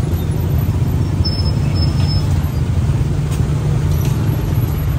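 Steady low engine rumble of road traffic, with a brief thin high squeak about a second in.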